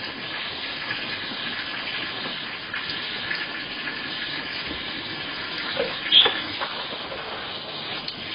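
Water running and splashing steadily, with a brief louder clatter about six seconds in.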